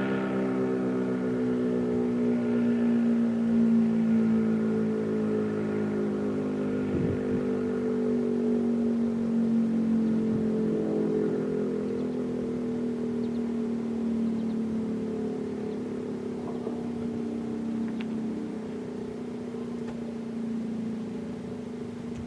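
American Signal RM-127 rotating mechanical warning siren winding down, its tone slowly falling in pitch and fading.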